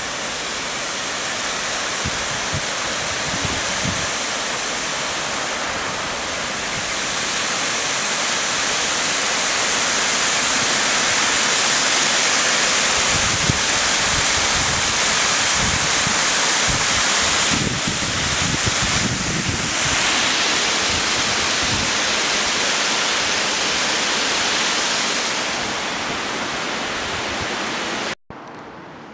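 Water pouring over a river weir: a steady, loud rushing that swells in the middle and cuts off suddenly near the end.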